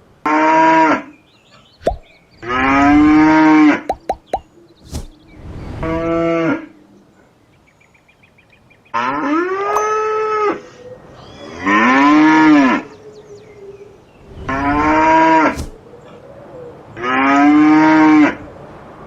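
Cattle mooing: about seven separate moos, each a second or so long, rising and falling in pitch. There are a few short sharp clicks between the early moos.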